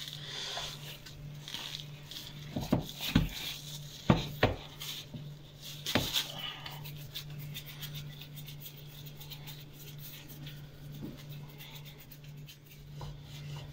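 Hands working soft bread dough in a plastic bowl lined with a plastic bag: rubbing and handling sounds, with several dull knocks in the first six seconds. A steady low hum runs underneath.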